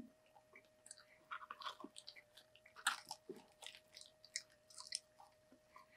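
Faint chewing and crunching of fast food, French fries and a McChicken sandwich, made up of many small scattered clicks and crackles. A faint steady hum lies underneath.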